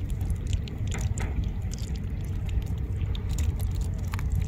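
Nylon fishing net rustling with scattered light crackles as small fish are picked out of it by hand, over a steady low rumble.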